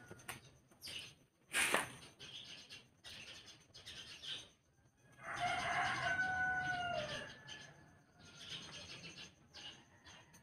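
A rooster crows once, one long call of about two seconds near the middle. About two seconds in there is a single sharp knock.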